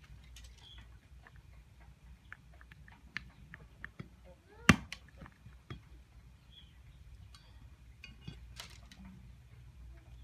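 A machete cutting thin green stems: one sharp chop about halfway through, among scattered light ticks and taps as the stems are handled.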